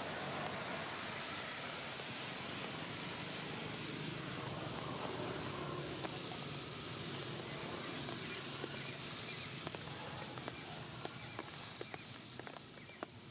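Steady outdoor background noise, with a run of short, sharp clicks over the last few seconds as the noise drops away.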